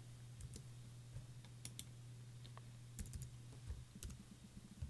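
Faint computer mouse clicks and keyboard key presses, a dozen or so short sharp clicks coming irregularly and sometimes in quick pairs or threes, over a low steady hum.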